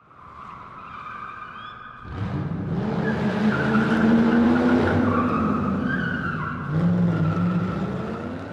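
Car sound effect: tires squealing, joined about two seconds in by a louder engine revving and running. It fades toward the end.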